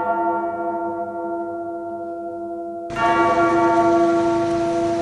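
A deep bell tolling as the opening of a music track: the ring fades slowly, then the bell is struck again about three seconds in, over a rising hiss.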